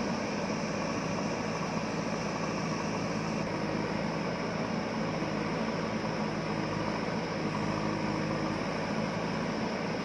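Steady mechanical running noise: a constant low hum with an even whirring on top, holding level without knocks or changes in speed.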